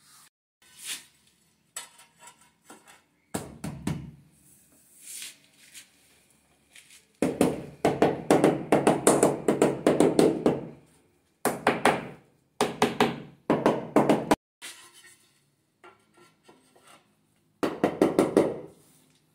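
Rubber mallet tapping ceramic wall tiles to bed them into fresh tile adhesive: several quick runs of dull knocks, the longest in the middle and another near the end. Before the knocking, fainter scraping of a notched trowel combing adhesive on the wall.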